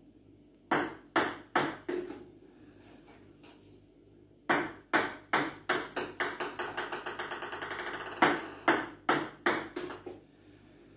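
Ping pong balls bouncing on a table tennis table in three runs, about a second in, about four and a half seconds in and about eight seconds in. Each run's bounces come quicker and quicker. The middle run speeds up into a fast chatter lasting a couple of seconds.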